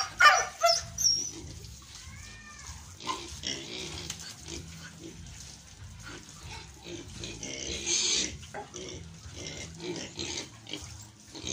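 Young weaned pigs calling in their pen: a run of short, irregular grunts and squeals, loudest in the first second, with a shrill burst about eight seconds in.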